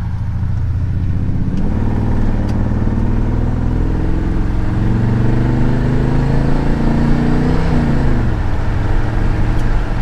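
Freshly rebuilt small-block Chevy 350 V8 in a 1977 Chevy C10 pickup accelerating, heard from inside the cab. Its pitch climbs for several seconds, then falls about eight seconds in. It runs with no lifter tick.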